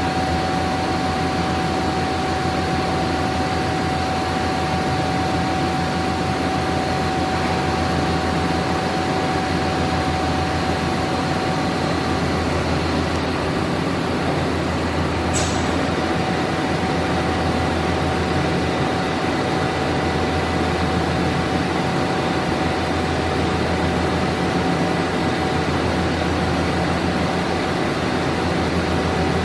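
Steady hum of running industrial machinery, with a constant tone and a low drone that do not change, and one sharp click about fifteen seconds in.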